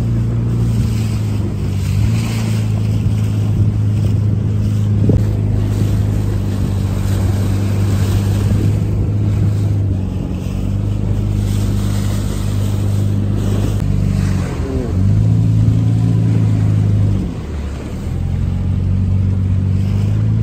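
Outboard motor of a small inflatable boat running steadily at speed across choppy water, with wind noise on the microphone. Its note dips briefly twice in the last third, then picks up again.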